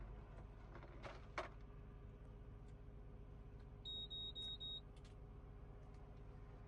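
A short run of high electronic beeps, about a second long, about four seconds in, over a faint steady low rumble with a couple of soft clicks earlier.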